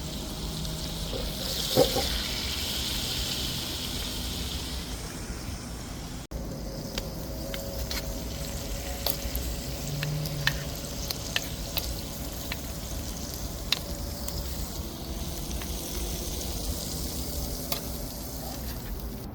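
Seafood frying in hot oil: a loud sizzle for the first few seconds, then, after a sudden break about six seconds in, a steadier sizzle with scattered crackling pops.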